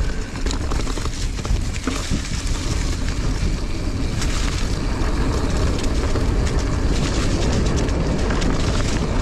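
Mountain bike being ridden over a dirt trail: steady wind rumble on the microphone, with scattered clicks and rattles from the bike and its tyres on the ground.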